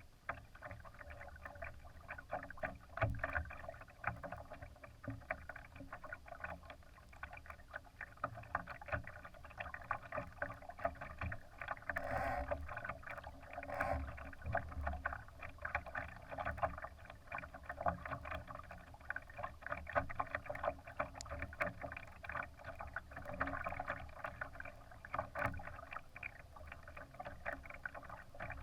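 Water splashing and slapping against the hull of a Laser sailing dinghy under way, a steady irregular patter of small splashes over a low rumble.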